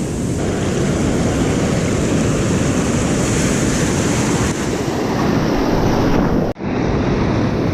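Ocean surf with wind buffeting the microphone: a steady, loud rush with no break except for an instant about six and a half seconds in.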